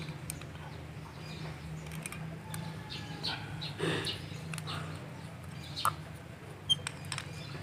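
Light clicks and taps of small metal parts being handled as a PCP air rifle's spring-loaded fill coupler is put back together, with a couple of sharper clicks near the end.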